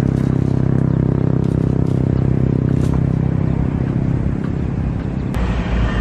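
An engine running steadily at a constant pitch, giving way about five seconds in to a rougher low rumble.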